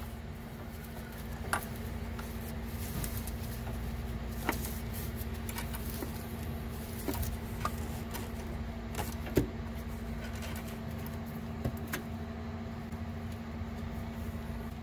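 Scattered light clicks and taps of metal parts knocking together as a clutch master cylinder is wiggled into place behind the brake master cylinder, over a steady low hum. The sharpest taps come about a second and a half in and again near the middle.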